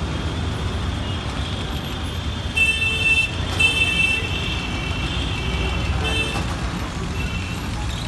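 Busy city street traffic with a steady low engine and road rumble. A vehicle horn honks twice in quick succession, about two and a half and three and a half seconds in, with a fainter honk near six seconds.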